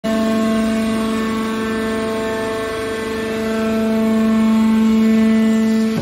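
Hydraulic power unit of a metal scrap baler running: an electric motor and pump giving a steady hum-whine, with a strong low tone and a row of higher tones above it.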